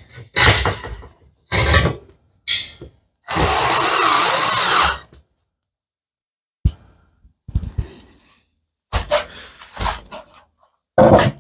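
Power drill running in one burst of just under two seconds, a little over three seconds in, among several short knocks and clatters of tools and materials being handled.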